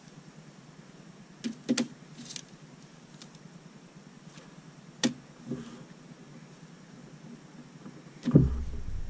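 Small plastic clicks and taps of LEGO pieces being handled and pressed together, a few scattered through the first half. Near the end a louder knock is followed by low rumbling handling noise.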